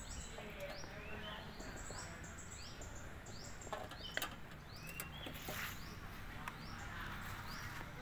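A small bird chirping over and over in short, high, falling notes, about two a second, over a low steady background hum. A few sharp metallic clicks about four seconds in as the soup pot is handled.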